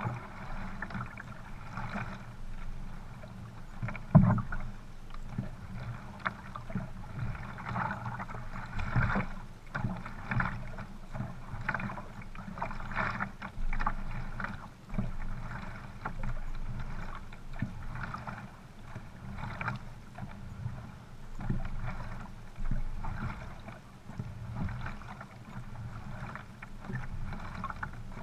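Paddle strokes in flat water from sprint canoes under way: the blade splashes in and pulls through at roughly one stroke a second, with water washing along the hull. A single sharp knock stands out about four seconds in.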